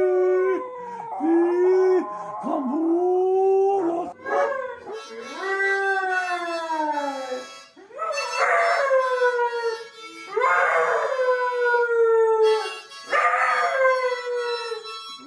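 Dogs howling. First a small white poodle holds long, steady howls. After a cut, a white-and-brown short-haired dog gives long howls that fall in pitch, three of them beginning with a rougher burst.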